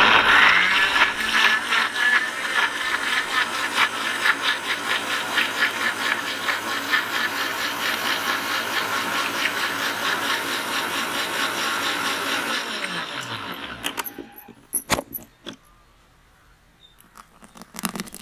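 Electric mixer grinder blending pineapple pieces with sugar and water, running steadily with a fast rattle of the fruit in the jar. About 13 s in it is switched off and the motor winds down with a falling whine, followed by a few knocks.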